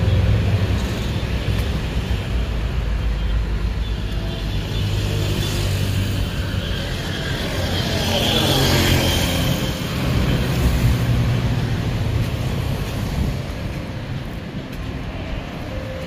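Road traffic going past close by, with a steady low rumble; a motorcycle passes near about halfway through, swelling and then fading.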